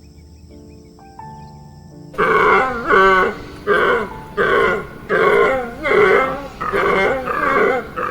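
An animal calling in a rapid series of loud, evenly spaced calls, about one and a half a second, starting about two seconds in. Before them, soft steady tones.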